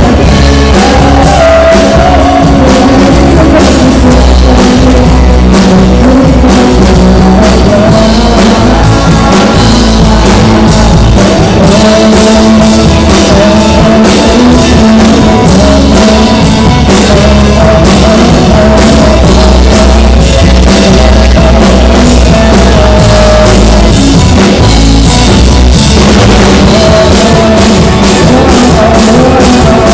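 A rock band playing live, loud: a drum kit with steady cymbal hits, electric guitars and bass, and a lead vocalist singing into a microphone.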